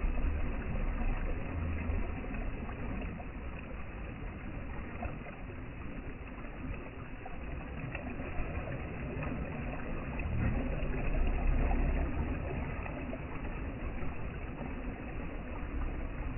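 Ocean waves: a steady wash of surf with a deep low rumble, swelling to its loudest about eleven seconds in.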